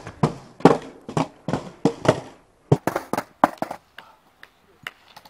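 Skateboard slam on concrete: a run of heavy knocks, about two a second, then a cluster of sharper clacks around three seconds in, as the skater and his board hit the ground after bailing a 50-50 grind down a ten-stair ledge.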